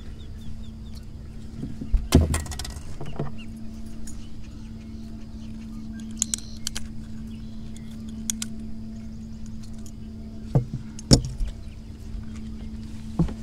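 A steady low electric motor hum aboard a bass boat, under the clatter and metallic clinks of a caught bass and tackle being handled on the deck. Sharp knocks stand out about two seconds in and again near eleven seconds.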